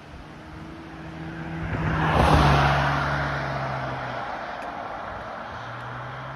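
A motor vehicle passing close by: engine and tyre noise build up, peak about two seconds in, then fade away slowly.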